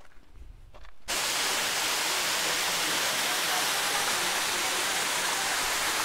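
A few faint footsteps on a dirt trail, then, about a second in, the steady rush of a small waterfall pouring into a rock pool starts abruptly.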